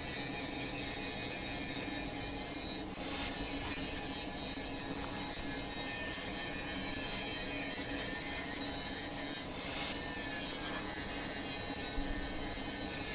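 A power grinder running steadily against steel, grinding rust off the jaws of a blacksmith's post vise down to bare metal, with two brief dips as the tool eases off the work.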